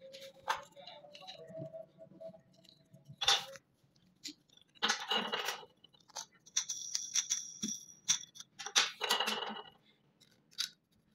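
Small plastic gears being handled and worked onto a metal axle and threaded rod: scattered light clicks and plastic-on-metal scraping, with a high squeak lasting about a second and a half near the middle.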